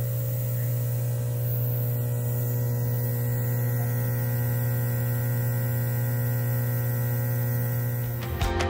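Air compressors of a 33-inch Dive hyperbaric chamber running at full pressure, giving a steady low hum with several held tones above it. Music comes in near the end.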